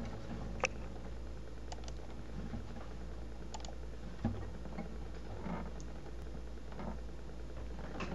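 Faint scattered clicks and light handling noises over a low steady hum, with one sharper click near the start and another about halfway through.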